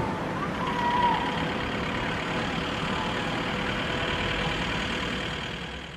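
Street traffic noise: a steady rumble of cars and engines, fading out near the end.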